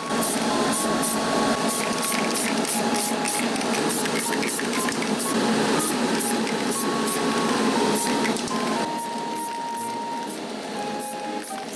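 Aerosol spray paint can hissing as sand-coloured matte paint is sprayed onto model tree trunks; it stops about nine seconds in. Background music with a melody plays throughout.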